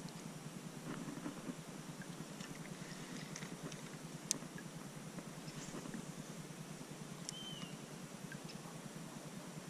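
Faint open-air ambience from a kayak drifting on still water, with small scattered clicks and knocks from the boat and gear and one sharper click about four seconds in. A short high chirp comes about seven seconds in.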